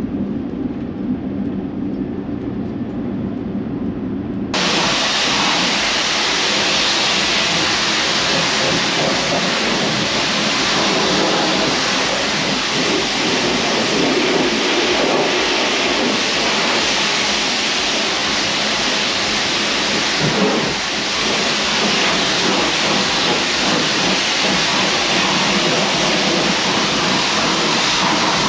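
Low, steady road rumble of a vehicle driving. About four seconds in, this gives way to the loud, steady hiss of a high-pressure washer jet spraying a motorhome at a self-service wash bay.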